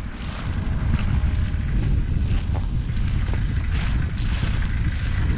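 JCB Fastrac 4220's 6.6-litre six-cylinder diesel engine running steadily, a deep continuous rumble, with wind buffeting the microphone.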